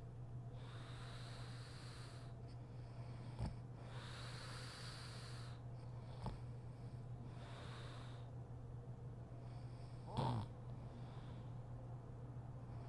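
Woman snoring in her sleep: slow, hissy breaths about every three seconds, with a short snort or click between them; the loudest snort comes about ten seconds in.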